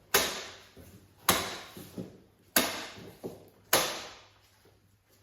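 Hammer blows on timber: four sharp, evenly spaced strikes about a second apart, each ringing out as it fades.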